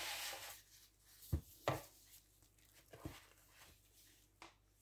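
A utensil scraping whipped cream-cheese cream out of a bowl onto the cake, a short scrape at the start followed by a few light knocks and taps spread out over the next few seconds.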